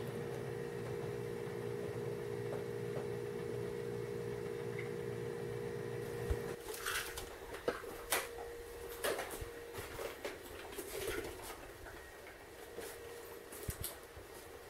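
A steady low hum that stops suddenly about six and a half seconds in, followed by scattered light clicks and knocks.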